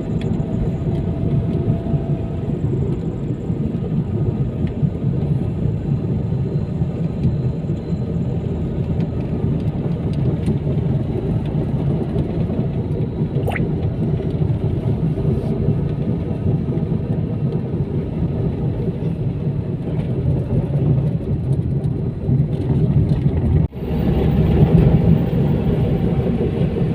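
A moving car's engine and tyre noise, a steady low rumbling drone. It cuts out for an instant near the end and comes back slightly louder.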